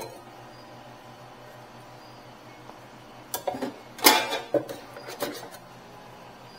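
A short run of knocks and clatters, serving utensils and containers handled at a food bar, loudest about four seconds in, over a steady low hum.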